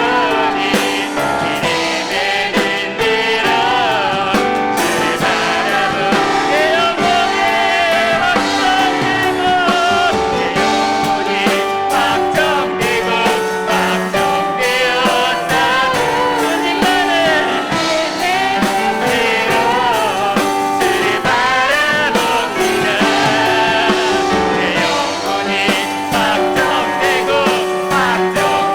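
Live contemporary worship music: a church praise team singing a hymn-style song, accompanied by piano and drums.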